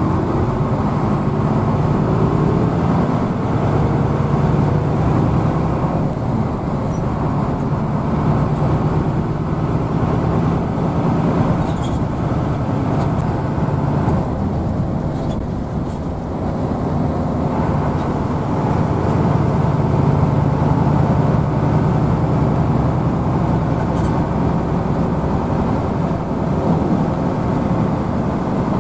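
Hino AK bus engine running steadily while the bus is under way, with road noise, heard from inside the passenger cabin. The hum eases off a little about halfway through and builds again after.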